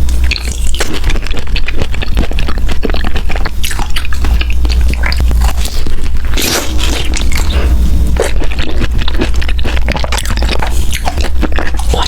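Close-miked eating: crunching, chewing and squishing of food in the mouth, a dense run of crackly bites and chews over a steady low hum.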